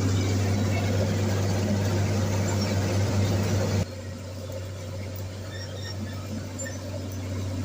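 International TD15 crawler bulldozer's diesel engine running with a steady low drone. About four seconds in, the sound drops abruptly to a quieter level and carries on.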